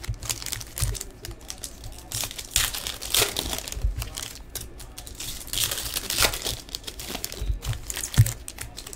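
Trading-card pack wrappers crinkling and tearing as packs are opened by hand, with cards rustling as they are handled and sorted; a thump about eight seconds in.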